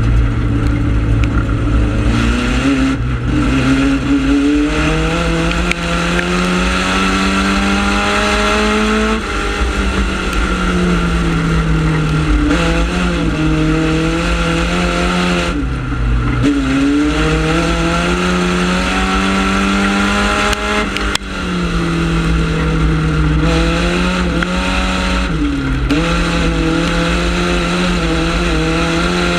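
Four-cylinder ministock dirt-track race car's engine at racing speed, heard from inside the cockpit. The revs climb along each straight and drop off sharply into each turn, several times over.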